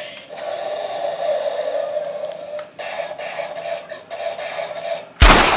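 Electronic toy gun sound effects: a steady wavering electronic tone, then a sudden very loud blast of noise near the end.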